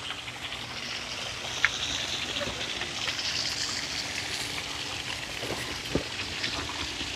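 Pond fountain spraying water that splashes back onto the pond surface: a steady hiss of falling water.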